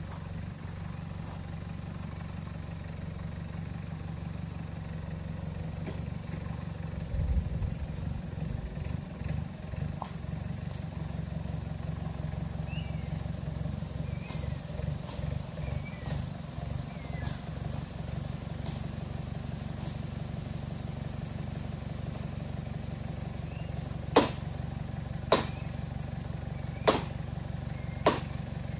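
A vehicle's engine running steadily, with an uneven, bumpy stretch early on. Near the end come four sharp knocks about a second or more apart.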